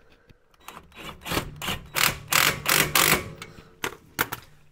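Ryobi cordless power tool running the front suspension bolts down tight. From about a second in there are fast rattling clicks over a steady motor hum for about two seconds, then a couple of single sharp clicks.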